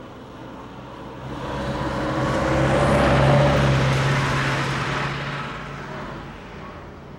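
A bus drives past. Its engine hum and road noise swell to a peak about three seconds in, then fade away.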